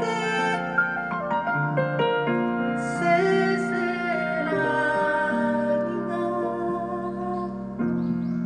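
Live music: a woman sings long, held notes over grand piano accompaniment.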